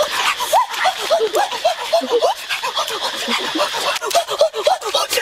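A dense chorus of short chirping animal calls, several a second and overlapping, over a steady high insect drone.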